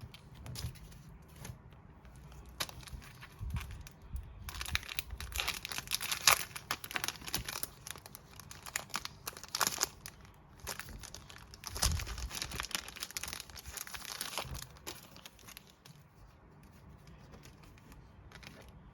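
Packaging crinkling as it is handled and pulled open during an album unboxing, in several bursts: about four to seven seconds in, around ten seconds, and again from about twelve to fourteen seconds, with light handling clicks between.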